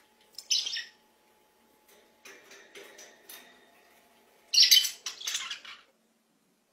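Budgerigars chirping and squawking: a short call about half a second in, a run of softer chirps a couple of seconds later, and a loud burst of calls near the end.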